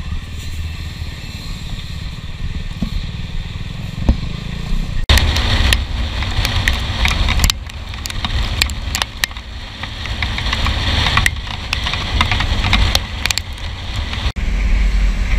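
KTM Duke 390's single-cylinder engine idling with a low rumble. About five seconds in, an abrupt cut switches to riding at speed, where loud wind rush over the microphone dominates, with scattered sharp clicks and a second cut near the end.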